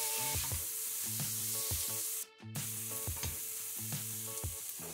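Diced onion, garlic and peppers sizzling in olive oil in a stainless steel pot, stirred and scraped with a silicone spatula, over background music. The sound drops out for a moment about halfway through.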